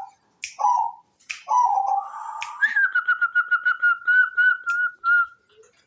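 Zebra dove (perkutut) calling: a rapid run of short whistled notes at one steady pitch, about eight a second, for close to three seconds, after a few shorter calls near the start.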